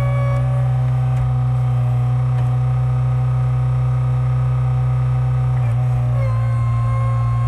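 Skid steer engine running steadily, driving a hydraulic log-splitter attachment, with a constant drone and a steady hydraulic whine. The pitch shifts slightly about six seconds in, as the load changes.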